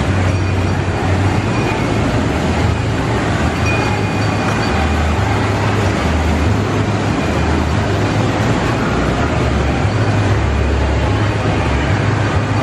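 Small electric kiddie train ride running around its floor track, a steady rumble.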